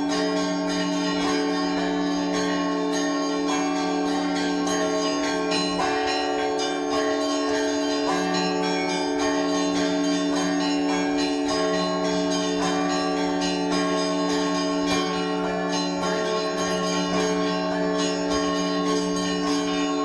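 Orthodox church bells pealing for Easter. Deep bells hum steadily underneath while smaller bells are struck rapidly and continuously over them.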